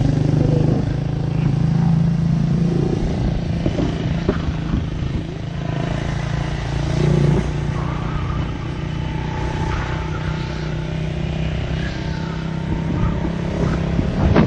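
Motorcycle engine running steadily on the ride, a continuous low drone.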